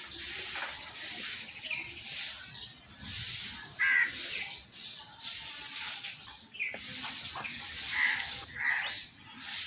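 Crows cawing repeatedly, short harsh calls a second or two apart, over a steady hiss.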